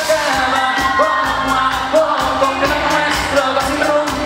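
Pop song played by a live band with drums and guitars, a lead voice singing over it, and some crowd noise underneath.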